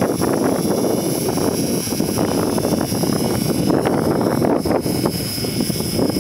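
Radio-controlled model helicopter flying: a steady rotor and engine noise with a high, steady whine above it.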